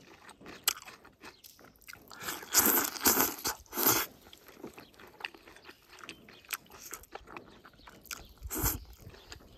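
Close-up eating sounds: a person chewing a mouthful of stir-fried green chili peppers and rice, with many small wet mouth clicks. The chewing gets louder for about a second and a half a couple of seconds in, and briefly again near the end.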